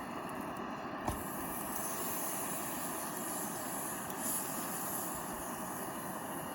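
A machine engine running steadily, most likely the Bobcat E35 mini excavator's diesel, with a single short knock about a second in.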